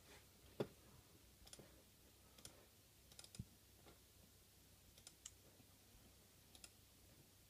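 Faint, scattered clicks of a computer mouse or keys, about nine in all at irregular spacing, over near-silent room tone.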